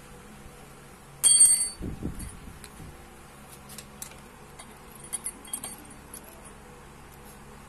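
Hand tools and bolts clinking on a scooter's stator and engine case while the stator's Allen bolts are taken out. There is one sharp, bright metallic clink with a short ring about a second in, then a few dull knocks, then light metal ticks and rattles.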